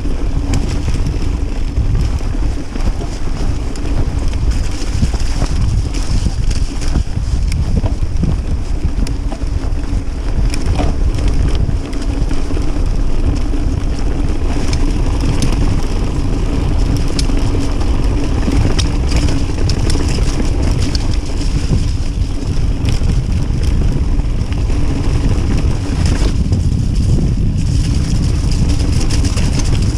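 Wind buffeting the microphone and knobbly tyres rumbling over a dirt trail as a Kona Process 153 DL 27.5 mountain bike descends, with frequent clicks and rattles from the bike jolting over roots and stones.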